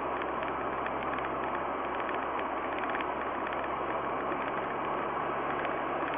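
Steady road and engine noise heard inside a car's cabin as it drives at about 60 km/h on a wet road: an even rush of tyre and wind noise over a faint low engine hum.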